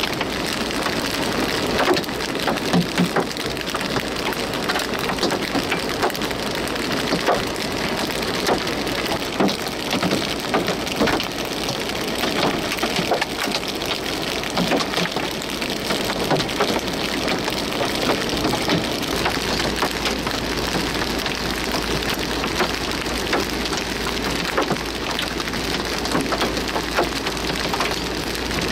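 Steady heavy rain falling, with a dense patter of sharp ticks from drops striking a hard surface close by.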